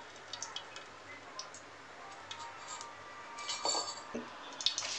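Light clicks and clinks of kitchen utensils and an aluminium pot, with a louder clatter about three and a half seconds in.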